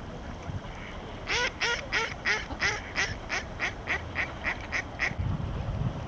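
Mallard quacking: a quick run of about a dozen harsh quacks, roughly three a second, starting about a second in and tailing off slightly.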